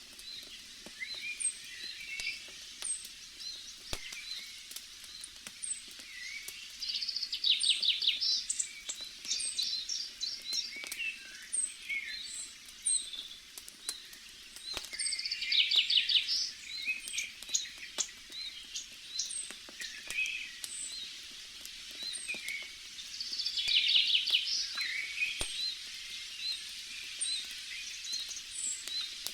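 Forest birdsong: a songbird repeats a short trilled phrase about every eight seconds among scattered high chirps, with a few faint crackles from a campfire.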